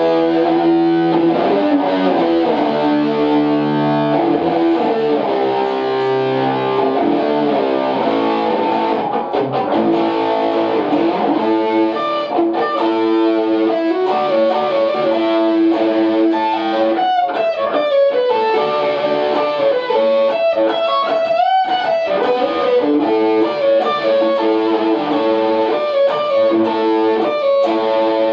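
Overdriven electric guitar, a Red Special-style guitar through a Greg Fryer Treble Booster Super into a Vox AC30, playing a melodic lead line of sustained notes, with several string bends and vibrato about two-thirds of the way through.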